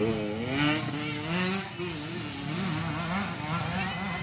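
Trail motorcycle engine revving under load as the bike climbs a steep dirt slope. Its pitch drops over the first second, then wavers up and down.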